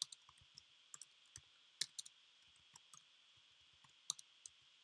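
Computer keyboard keys clicking as a few characters are typed: faint, scattered, irregular clicks with gaps between them.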